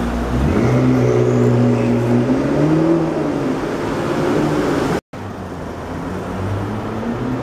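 McLaren MP4-12C's twin-turbo V8 pulling away at low speed, its pitch stepping up about half a second in, rising and then falling back. A brief dropout breaks it about five seconds in, then the engine is heard again, rising in pitch near the end as the car accelerates.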